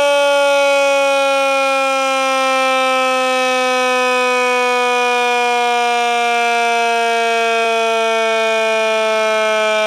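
Federal C5 12-volt mechanical siren sounding a loud, steady wail that slowly falls in pitch as its rotor winds down.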